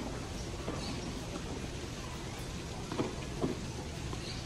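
Steady outdoor background noise with a few short, soft knocks, two of them close together about three seconds in.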